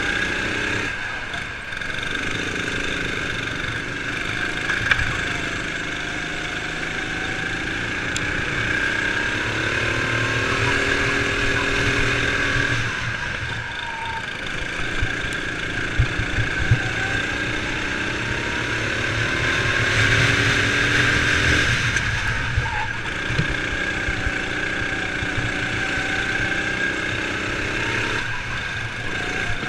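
Sodi RX7 kart engine running hard on the track, its pitch rising and falling again several times as it revs up and drops back. A few sharp knocks come through partway in.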